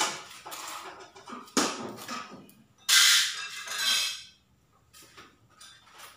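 Sudden rasping, rustling sounds of adhesive reflective-vinyl sticker letters being worked by hand onto a road-sign panel: a few short ones, and the loudest, a hiss lasting about a second, about three seconds in.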